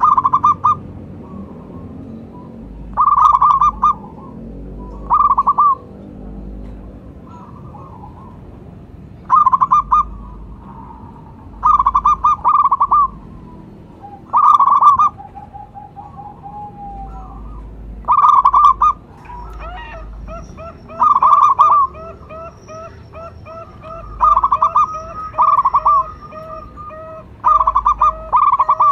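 Zebra dove (perkutut) cooing: loud, quickly trilled phrases, each under a second, repeated about every two to three seconds. From about two-thirds of the way in, a softer run of rapid short notes goes on beneath them.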